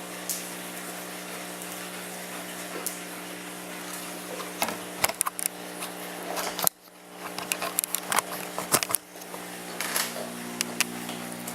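A steady electrical hum runs under small clicks and knocks of handling. The knocks grow frequent in the second half, with a brief sharp drop in level a little past the middle.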